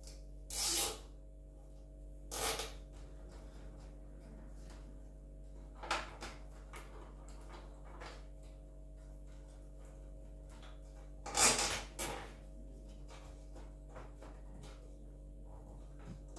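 Cable ties being pulled tight and cables handled inside a PC case: four short rasping zips with scattered small clicks, over a steady low electrical hum.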